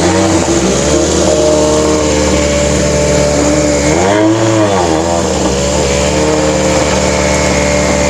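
Rally car engine running at steady revs, its pitch rising and falling once about four seconds in.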